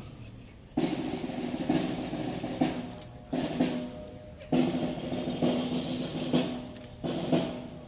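Ceremonial snare drum roll starting under a second in and restarting several times, sounding as a wreath is laid.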